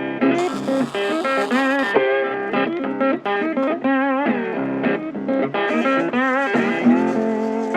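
Background music: an electric blues guitar playing bent and vibrato-laden lead notes over a steady accompaniment.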